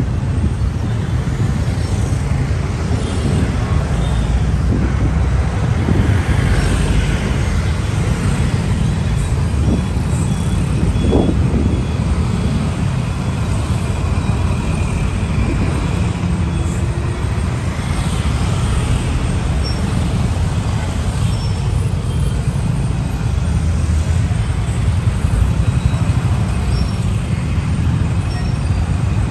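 Busy city street traffic: a steady rumble of motorcycles, cars and buses moving in congestion.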